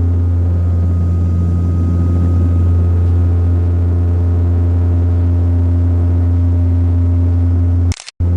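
Embraer 120 Brasilia's twin Pratt & Whitney PW118 turboprops and propellers running steadily: a loud, deep propeller hum with a fainter high whine above it, heard from inside the cabin. It cuts off abruptly near the end.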